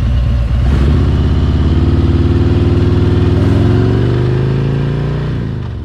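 Harley-Davidson Road Glide Special's Milwaukee-Eight 114 V-twin running under way, its note rising as it accelerates, then easing off and fading near the end.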